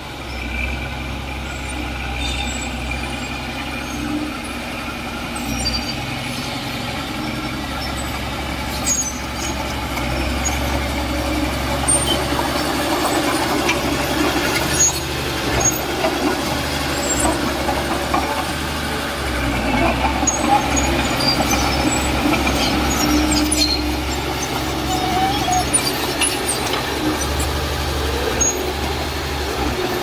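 Heavy diesel construction machinery running, its low engine drone easing off and coming back several times, with scattered short metallic squeaks and clanks.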